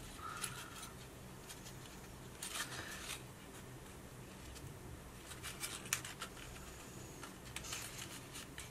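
Faint rustling and crinkling of gray cardstock being handled and folded as glued tabs are pressed into place, with a few soft clicks in small clusters.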